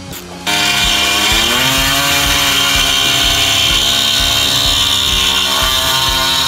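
Electric power tool cutting out part of a car's inner wheel-arch guard to make room for the snorkel hose: it starts suddenly with a rising whine as it spins up, then runs steadily at speed, with a slight change in pitch near the end as the load changes.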